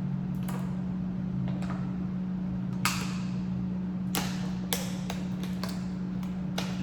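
Close-up eating sounds: a run of about nine sharp crunches and cracks, the loudest about three seconds in, with several quick ones close together in the second half, over a steady low hum.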